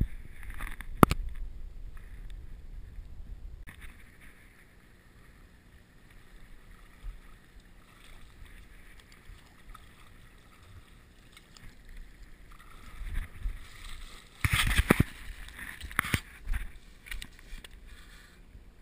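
Stream water running, with sharp knocks and rustling from line and fish handling: one knock about a second in, and a louder cluster of knocks and scuffs about three-quarters of the way through as a hooked brook trout is landed on a grassy bank.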